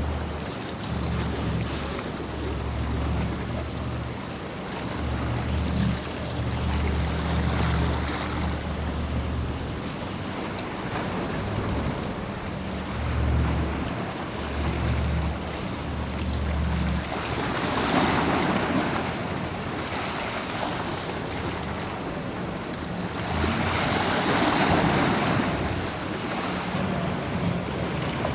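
Waves washing and breaking, with wind buffeting the microphone in gusts. Two louder wave crashes come, one a little past halfway and one near the end.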